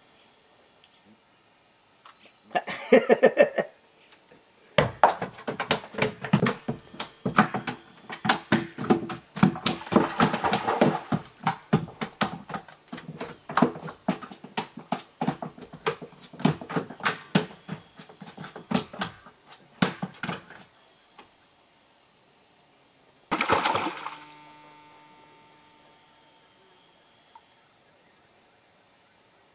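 A freshly landed piranha flopping on the wooden floorboards of a boat: a long run of irregular, sharp slapping knocks that stops about three-quarters of the way through. Insects keep up a steady high drone throughout, and a single brief noisy burst comes after the knocking ends.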